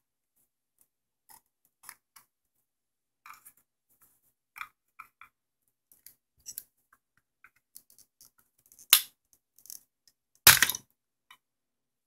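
Screwdriver prying at the plastic case of a TI-30 calculator: scattered small clicks and scrapes of metal on plastic. Near the end come two louder, sharp cracks as the case's plastic clip teeth are pried apart.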